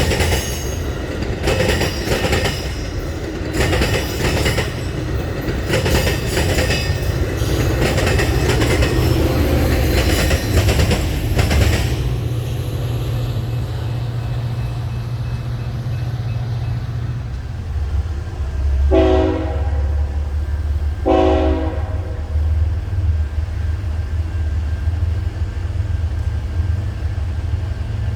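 Railroad cars rolling past with wheels clattering over rail joints, giving way about twelve seconds in to a steady low locomotive rumble. Two short blasts of a locomotive air horn sound about two seconds apart.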